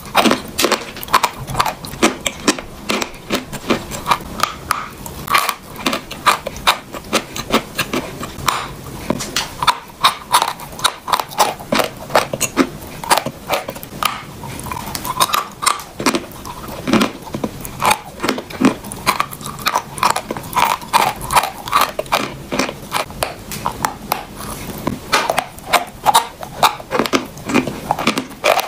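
A piece of eating chalk being bitten and chewed, with dense crisp crunches many times a second throughout.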